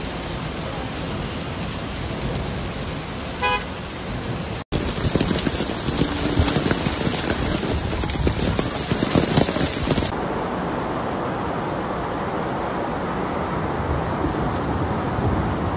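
Heavy rain pouring down on a flooded road with cars, a car horn sounding briefly about three seconds in. After a cut the noise becomes louder and uneven, then settles into the steady sound of fast-flowing floodwater.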